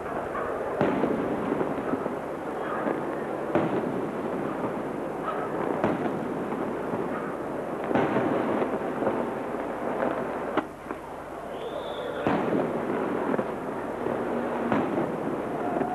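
Aerial firework colour shells bursting overhead: a loud bang about every two to three seconds over a steady noisy background.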